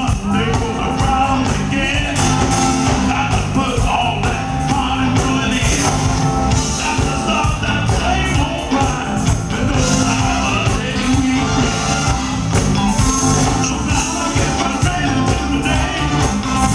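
Live soul/R&B band performance: lead vocalist and backing singers over a steady bass groove and keyboards, heard loud through the venue's PA from the audience.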